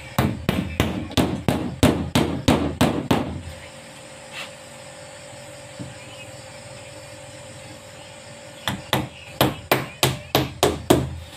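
Claw hammer driving nails into a board wall panel. There are two runs of quick, even blows, about four a second, separated by a pause of several seconds with only a stray knock.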